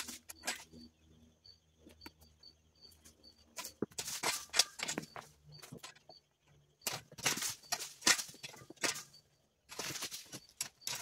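Dry leaves and brush rustling and crunching in several bursts a few seconds apart, with a faint high chirp repeating behind them.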